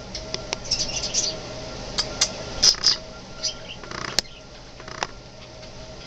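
Budgerigars chirping and chattering in short, high chirps and clicks, busiest in the middle, over a faint steady hum.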